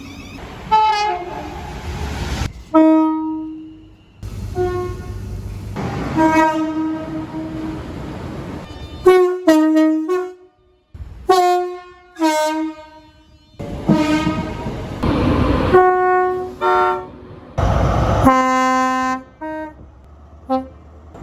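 British train horns sounding in a quick succession of short, cut-together recordings, each a blast of a second or two. Some blasts step between two notes, and train running noise lies under them.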